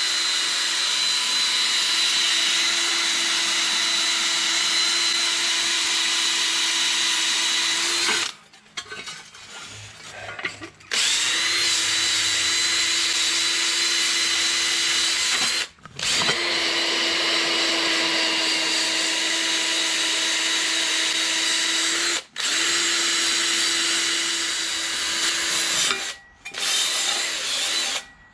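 Cordless drill spinning a nylon abrasive wheel against a rusty motorcycle exhaust heat shield, scrubbing off loose rust. The drill runs with a steady whine in long stretches. It stops for a few seconds about eight seconds in, dips briefly twice more, and runs once more briefly near the end.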